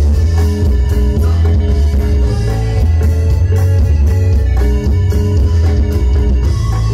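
Live cumbia band playing an instrumental passage: guitar over a heavy bass line and drums.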